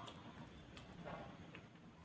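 A few faint, scattered clicks or light taps.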